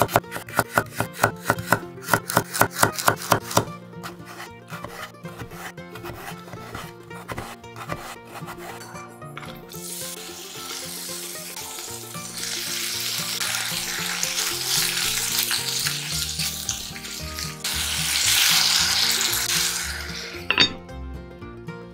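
Chef's knife chopping carrot on a wooden cutting board in quick, even strokes, then vegetables sizzling as they stir-fry in a cast-iron Staub pot. Near the end the sizzling swells as a little water goes in, and a single clank follows as the heavy cast-iron lid goes on.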